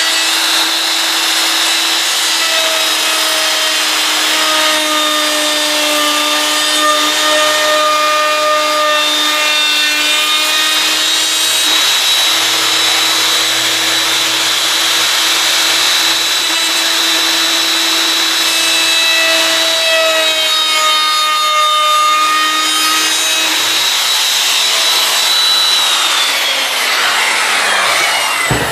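Handheld router running and cutting a chamfer along wood edges, its steady whine sagging in pitch as the bit bites into the wood. About 26 s in it is switched off and the whine falls away as the motor spins down, with a knock near the end.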